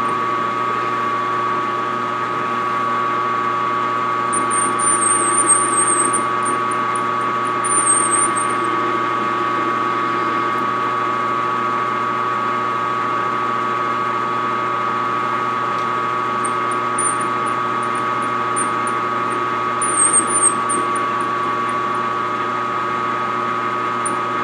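Metal lathe running with a steady hum and whine while the tool, fed by hand, takes light cuts in a 304 stainless steel shaft, giving short high-pitched squeals several times.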